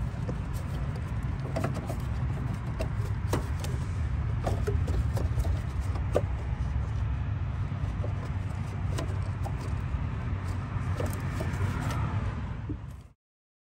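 Scattered light clicks and knocks of a gloved hand and tools working the oil filter back into place in a car's engine bay, over a steady low rumble. The sound cuts off abruptly near the end.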